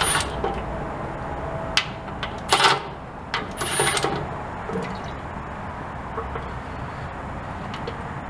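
Metal clinks and two short rattling bursts of hand tools and bolts as the transmission pan bolts are removed, over a steady background hiss.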